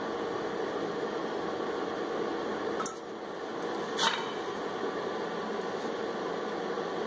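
Rear brake and hub parts of a 4th-gen Camaro being handled at the axle end: a light click a little under three seconds in and a sharper knock about four seconds in, over a steady background hum.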